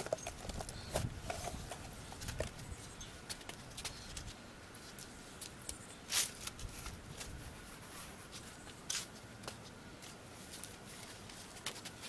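Faint handling noises of a cement-soaked cloth being lifted and draped over a plastic pot: soft rustling with scattered light clicks, the sharpest about six seconds in and again near nine seconds.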